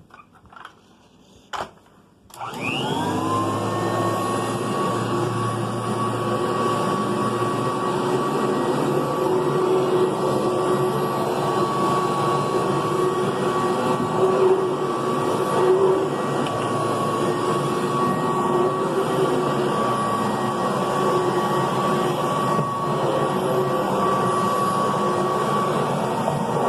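Kirby Classic III upright vacuum cleaner switched on after a few light clicks: its motor whine rises quickly to speed about two seconds in, then it runs steadily at full speed.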